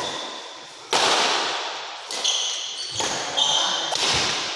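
Badminton rally in an echoing sports hall: several sharp racket strikes on the shuttlecock, each ringing on in the hall, with shoes squeaking briefly on the court floor.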